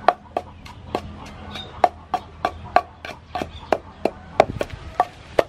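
Wooden pestle pounding chili paste in a wooden mortar: a steady run of sharp knocks, about three a second.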